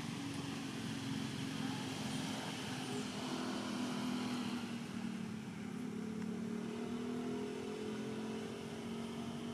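A motor vehicle's engine humming steadily, its pitch drifting slightly, with a second, higher hum joining about halfway through.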